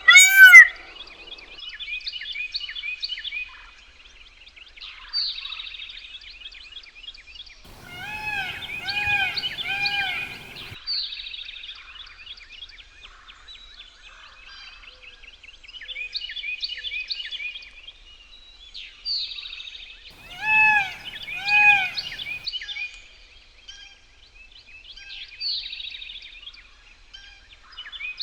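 Indian peafowl (blue peacock) calling: a short series of three loud, arched, wailing notes about eight seconds in and two more a little after twenty seconds, over steady chirping of small songbirds.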